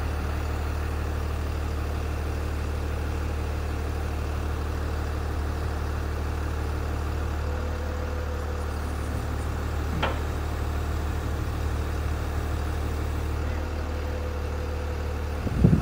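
Truck-mounted hydraulic crane's diesel engine running steadily to drive the crane's hydraulics, a constant low drone. A faint whine comes and goes over it, there is a small click about ten seconds in, and a brief loud bump near the end.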